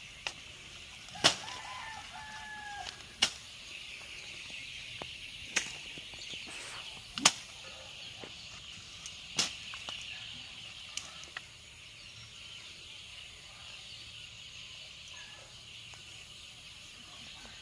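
Several sharp snaps and cracks of plant stems and a wooden stick as a person pushes through tall weeds on foot, spread through the first half, over a steady high-pitched insect drone.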